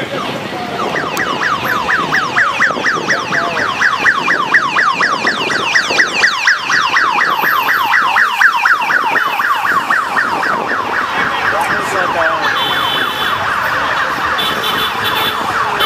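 Electronic siren in rapid yelp mode: a pitch rising over and over, several times a second, starting about a second in, over general street and traffic noise.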